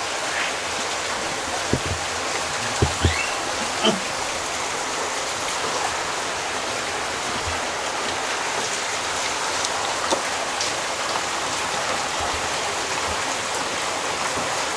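Steady hiss like heavy rain or rushing water, with a few small clicks about two to four seconds in and once more around ten seconds.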